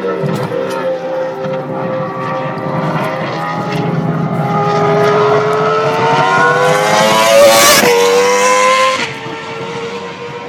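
Red Bull RB6 Formula One car's 2.4-litre V8 engine running at high revs. Its note climbs as it comes closer, and it passes loudest about eight seconds in. The pitch drops sharply as it goes by and the sound fades away after.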